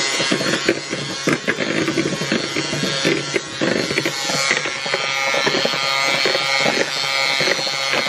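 Electric hand mixer running steadily, its beaters whipping egg whites into meringue for macarons.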